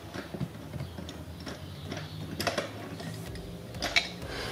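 Hand ratchet clicking in light, repeated ticks as it turns out a seat-rail mounting bolt, with a couple of sharper clicks later on.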